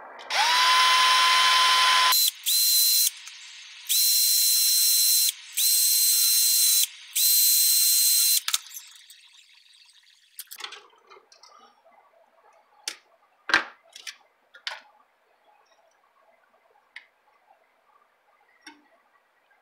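Cordless drill running in five short bursts, its motor whine rising as it spins up each time, as it drills out the motor-mount holes in an epoxy-repaired carbon fibre drone arm. Light clicks and taps of handling the frame follow.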